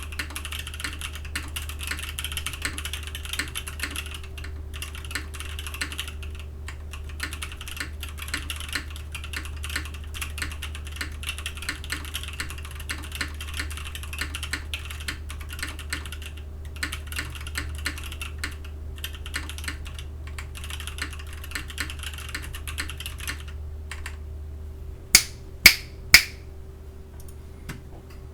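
Typing on a Krush65 mechanical keyboard, top-mounted with an aluminium plate and fitted with Gazzew Boba U4T tactile switches: a steady stream of keystrokes. Near the end, after a short pause, come three sharp, loud clicks about half a second apart.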